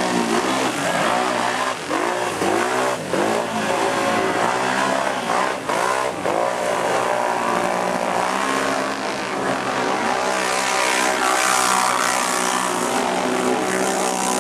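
Racing ATV engines revving hard under load as the quads plough through deep mud, the pitch swinging up and down in repeated surges.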